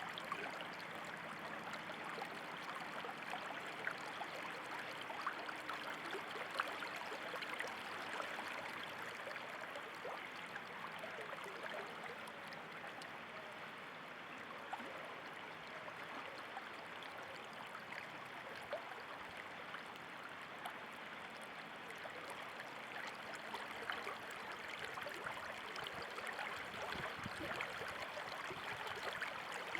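Running water, a steady babbling stream.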